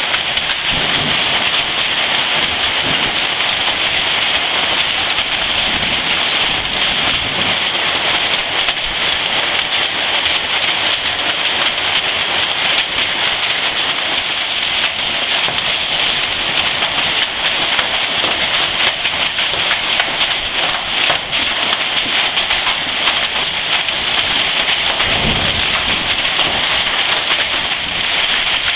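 Hailstorm: hailstones pelting down heavily, a dense, steady clatter of countless small impacts that keeps up without a break.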